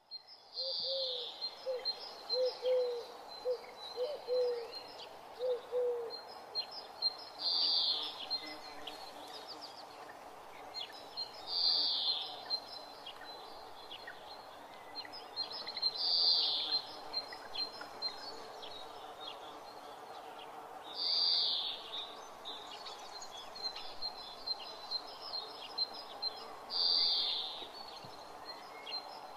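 Birds calling in the countryside: a short high call repeats every four to five seconds over steady lighter chirping. A bird hoots a series of about seven low notes in the first six seconds.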